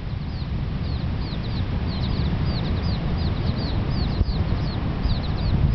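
Chicken chicks peeping: many short, high, falling chirps, several a second, from the brood foraging around the hen, over a steady low rumble.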